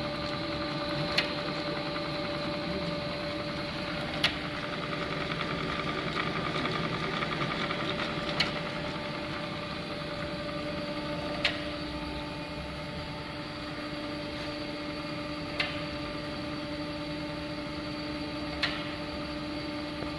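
Jones & Shipman cylindrical grinder running: a steady motor hum with a constant whine, and a sharp click every three to four seconds.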